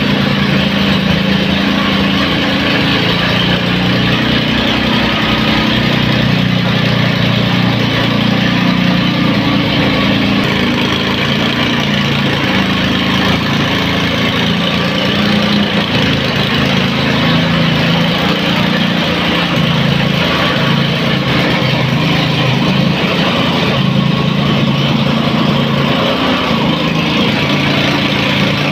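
Small engine of a tamping rammer (soil compactor) running steadily under load as it compacts soil.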